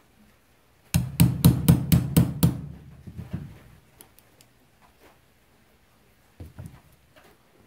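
About eight quick hammer strikes on a pin punch, driving the hammer pivot pin home through an SS12 single-shot shotgun's receiver. A few softer knocks follow near the end as the receiver is handled.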